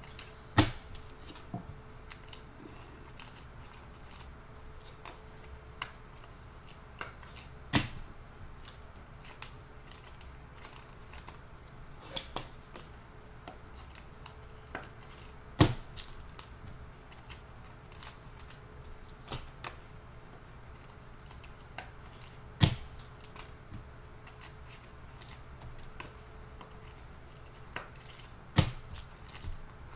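Trading cards and packs being handled and sorted by hand on a table: faint scattered clicks and taps, with a sharper knock every seven seconds or so, over a faint steady hum.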